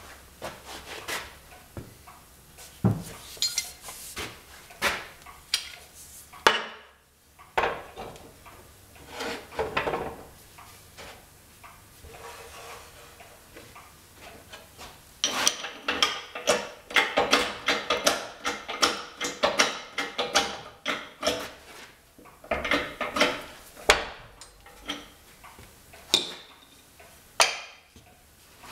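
Steel parts clinking and knocking as a studded steel flange and other metal pieces are handled and set down on a steel press table. The knocks come in irregular clusters, sparse at first and thickest in the second half.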